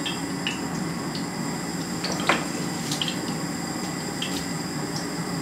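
Pot of vegetable stew in coconut milk boiling steadily, with a few soft ticks and splashes as pieces of cabbage are dropped in, the sharpest a little past halfway.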